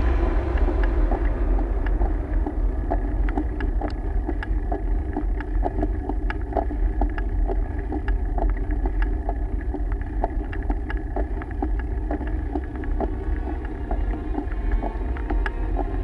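Ride noise from a camera on a moving mountain bike: a steady low rumble of tyres on the road and wind on the microphone, with frequent sharp rattles and clicks from the bike and camera mount.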